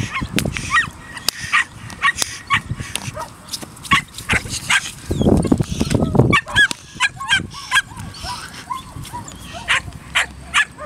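Belgian Malinois puppy yipping and barking in quick runs of short, high-pitched calls as it strains on its leash toward the bite tug. A low rumble comes in about five seconds in.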